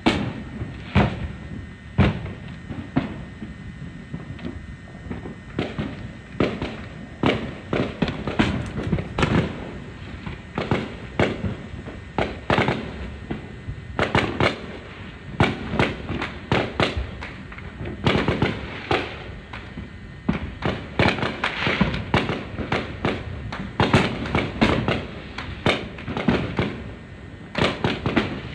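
Many fireworks going off over a wide area: a dense, unbroken run of bangs and pops of varying loudness, several a second.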